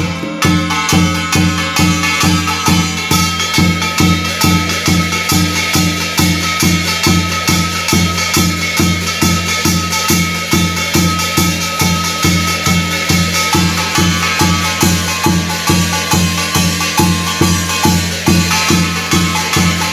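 Korean shaman's barrel drum beaten with a stick in a steady rhythm, about three strokes a second, with a held higher tone running over the beat.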